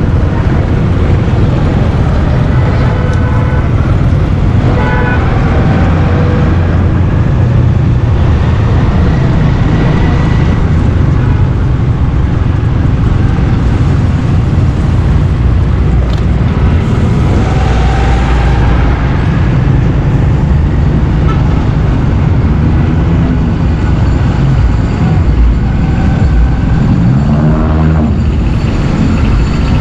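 Riding a motorcycle through city traffic: a steady heavy rumble of engine and wind. A vehicle horn toots briefly about five seconds in and again near the end.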